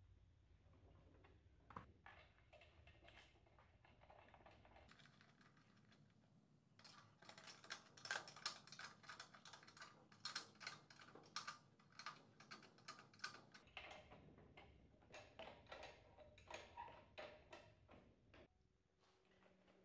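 Light metallic clicks and clinks of a spanner working nuts on a motorcycle's front fork, in quick irregular runs of taps that come thickest in the middle.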